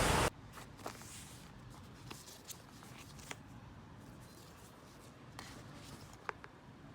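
A loud steady hiss cuts off abruptly just after the start, leaving a quiet room. Scattered small clicks and light rustles of handling sound over faint room tone.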